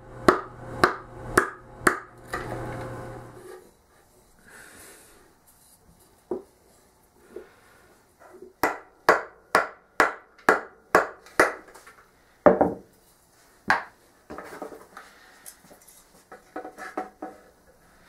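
A wooden mallet drives a carving gouge into the solid mahogany bowl of a barbat, making sharp wooden knocks about two a second. The knocks come in two runs: one at the start, then a short scrape, and a second run from about eight seconds in, followed by two single heavier blows. Lighter scraping and clicking come near the end.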